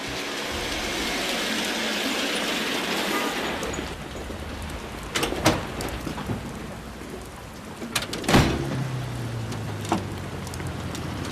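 Steady rain with thunder, the noise swelling over the first few seconds; in the second half several sharp cracks break through, in pairs.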